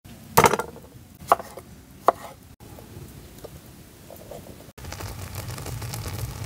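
A kitchen knife knocking on a thick wooden cutting board, three sharp chops with the first the loudest, then faint small handling sounds. Near the end a steady low rumble comes in.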